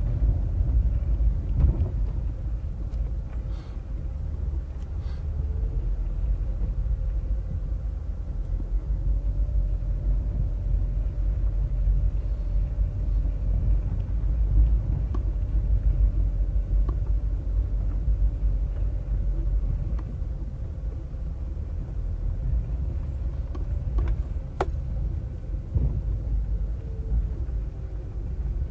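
Car driving on a dirt road, heard from inside the cabin: a steady low rumble with a faint steady hum above it and a few faint ticks.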